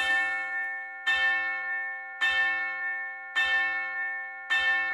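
Clock bell striking the hour: five even bell strokes about a second apart, each ringing out and fading before the next, as the clock strikes six.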